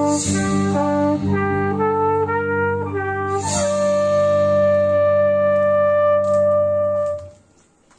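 Flugelhorn playing the closing phrase of a slow adagio melody over a held low chord, with audible breaths at the start and before the last note. The final note is held for about three and a half seconds and stops, ending the piece.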